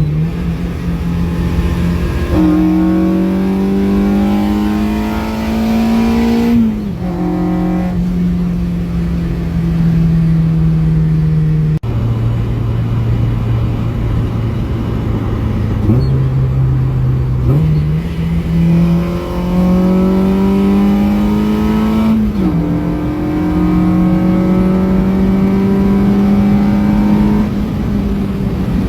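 Honda K24A2 inline-four in a Mazda Miata, through a 3-inch exhaust, accelerating through the gears. Twice the engine note climbs steadily in pitch and then drops sharply at an upshift. In between it holds a steady pitch, falls lower near the middle, then steps back up.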